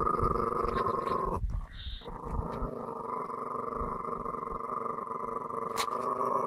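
Small wire-haired terrier growling steadily, a resource-guarding growl over a sculpin it has caught. The growl breaks off briefly about a second and a half in, then carries on.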